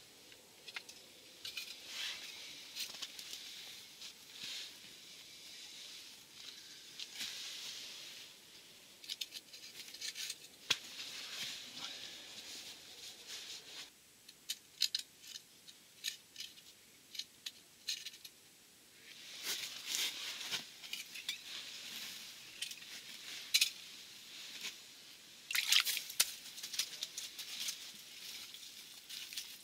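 Soft rustling of clothing and crunching of snow-covered ice as a hand moves over it, with scattered small clicks. Near the end comes a louder burst of scraping and crunching as a small fish is pulled out of the hole onto the snowy ice.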